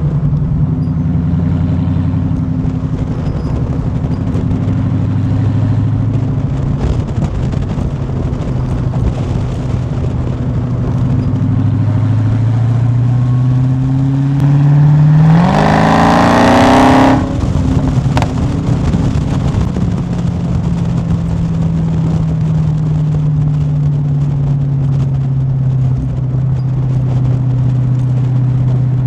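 Dodge Charger Hellcat's supercharged 6.2-litre Hemi V8 exhaust while driving: steady cruising, then about halfway through the engine note climbs into a loud hard acceleration for a couple of seconds and cuts off sharply as the throttle is lifted, settling back to a steady cruise.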